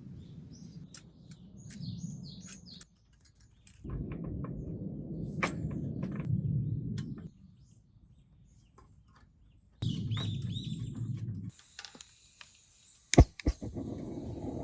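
Small birds chirping in short bursts over a low background noise that cuts in and out. Two sharp knocks near the end.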